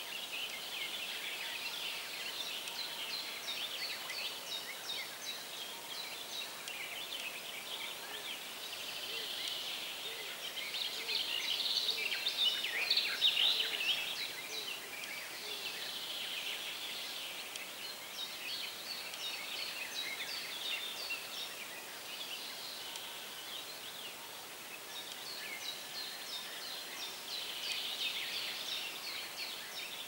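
Many songbirds singing at once, a dense chorus of chirps and trills that swells to its loudest around the middle, over a faint steady hiss.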